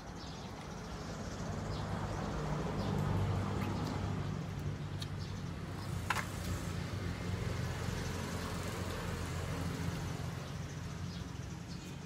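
A motor engine running with a steady low hum, which grows louder over the first few seconds and then holds. A single sharp click comes about six seconds in.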